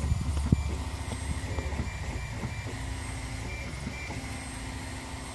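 Cocoon Create 3D printer's stepper motors humming in short tones that start and stop as the print head moves, with a knock about half a second in.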